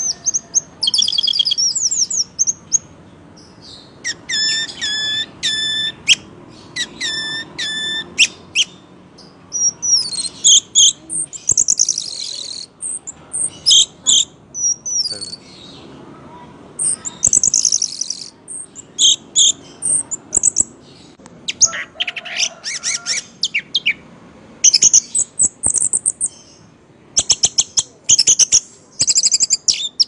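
Orange-headed thrush singing a loud, varied song in phrases of high whistles, evenly repeated notes and fast runs of sharp notes, with short pauses between phrases.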